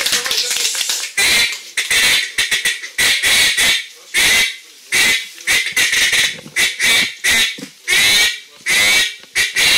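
Hand-blown duck call imitating duck quacks: a quick run of calls, then separate sharp quacks about two a second, blown into a microphone.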